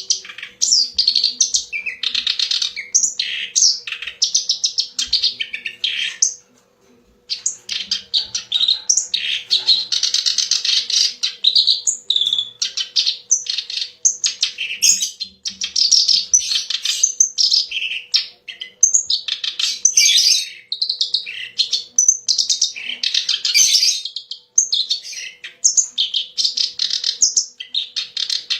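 Kerak basi, a reed warbler, singing a long, rapid, chattering song of harsh, varied phrases, with one brief pause about six seconds in.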